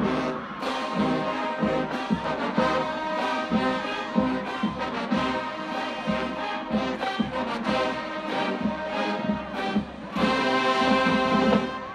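College marching band playing: brass over a steady drum beat about twice a second, swelling into a loud held chord about ten seconds in that cuts off near the end.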